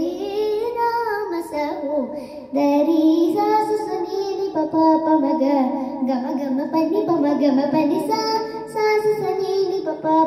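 A girl singing a Carnatic kriti in raga Shuddha Dhanyasi, her voice sliding and ornamenting between the notes, with a short break for breath about two and a half seconds in.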